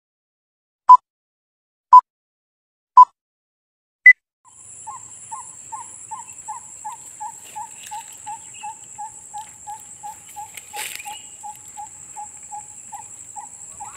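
Four loud electronic countdown beeps, three at one pitch a second apart and a fourth at a higher pitch. Then outdoor field sound: a steady high insect trill, with a chirping call repeated about three times a second.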